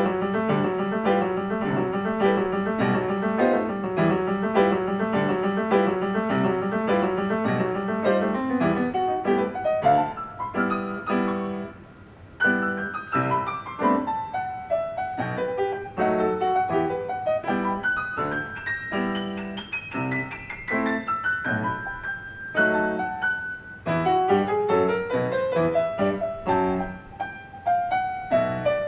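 Piano played in a live performance: steady repeated chords at first, a short break about twelve seconds in, then rising and falling runs of notes.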